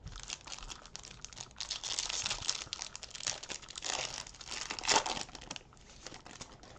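Foil wrapper of a Panini Prizm basketball card pack crinkling and tearing as it is opened by hand; the crackling stops near the end.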